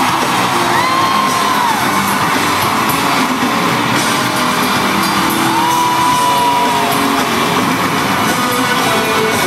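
Loud live music in an arena, picked up by a phone among the crowd, with fans whooping and yelling. Twice a high held note swells up and falls away, about a second in and again about six seconds in.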